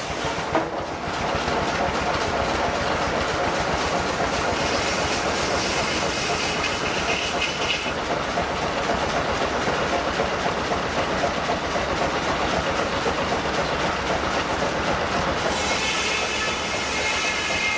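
Steam-driven machinery running with a steady fast clatter and hiss. A brief high tone sounds about six seconds in, and the hiss gets brighter near the end.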